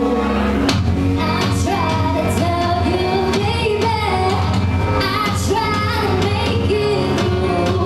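A woman singing live into a handheld microphone over a loud backing track with heavy bass.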